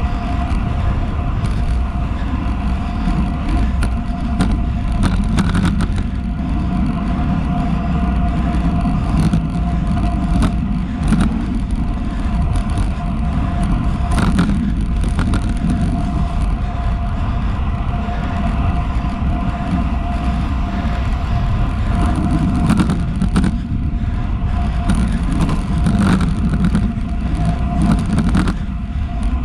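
Wind rushing over a handlebar-mounted GoPro and tyre roar from a road bike on Roval Rapide CLX 50 carbon wheels ridden at about 36 km/h on asphalt. The rushing is steady, with a constant faint hum and scattered clicks.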